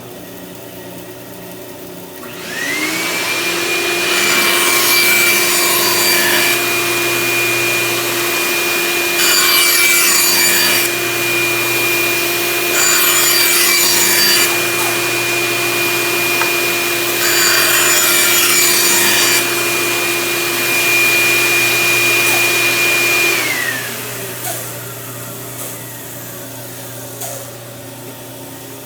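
Bandsaw and dust-extraction vacuum running, with a motor whine that spins up about two seconds in and winds down near the end. The blade makes about four cuts through wood, each a louder rasping stretch of a couple of seconds.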